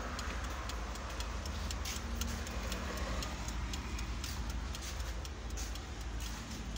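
Wind-up timer on an electric tyre-patch vulcanizing press ticking steadily while it counts down the curing time of a patch on a truck inner tube, over a low hum.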